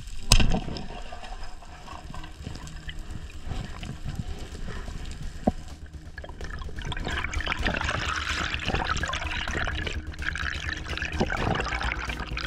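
Underwater water noise with bubbling and rushing, which grows louder about seven seconds in. A sharp loud knock comes about a third of a second in, and a smaller click about five and a half seconds in.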